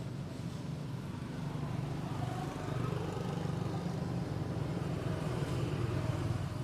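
A motor vehicle's engine running with a steady low hum, growing somewhat louder from about two and a half seconds in.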